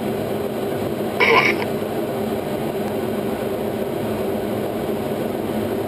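F-16 cockpit noise as picked up over the pilot's intercom: a steady drone and hiss, with a short, brighter click-like burst about a second in.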